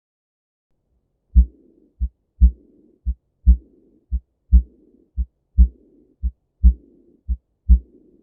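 Heartbeat heard through a stethoscope at about one beat a second, each beat a pair of low thumps, with a murmur filling the longer gap between the louder and the quieter thump. It starts about a second and a half in.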